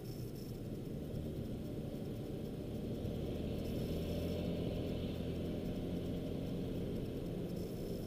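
Steady engine drone and road noise of a moving car, heard from inside the cabin, getting a little louder about three seconds in.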